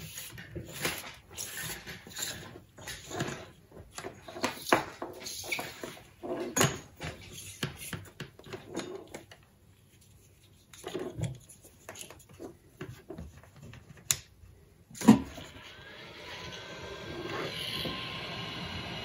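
Small clicks and rustles of coax cable and heat-shrink tubing being handled on a wooden bench. Near the end a sharp click and then a steady blowing hiss that builds up: a heat gun starting up to shrink the tubing.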